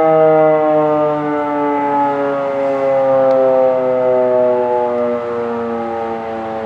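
Federal Signal Model 5 outdoor warning siren sounding during a test, loud, its tone gliding slowly and steadily down in pitch.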